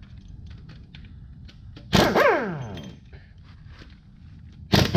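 An impact wrench fires in two short bursts a few seconds apart, each starting sharply and its motor whine falling in pitch as it spins down, backing rocker arm bolts out of a Gen 3 5.3 LS V8. Light metallic ticks come between the bursts.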